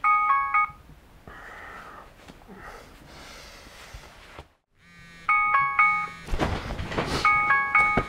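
Smartphone alarm tone: a short electronic chime phrase of a few high notes. It plays once at the start and stops, then rings twice more near the end, with a loud rustle of bedding between the two as the sleeper wakes.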